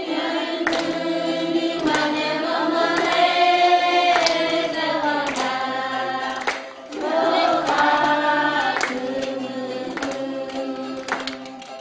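A group of voices singing together over a steady percussive beat, growing quieter near the end.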